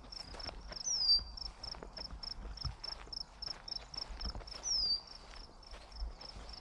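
Footsteps of a person walking on a trail, over a steady, high-pitched, rapid pulsing from an insect at about five pulses a second. A bird gives a short downward-sliding whistle twice, about a second in and near five seconds in.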